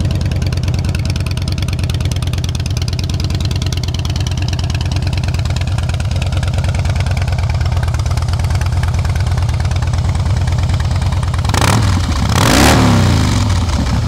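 2009 Harley-Davidson Rocker C's 96-cubic-inch V-twin idling steadily through Vance & Hines exhausts, with two quick throttle blips near the end, the second bigger. It runs with no odd engine noise.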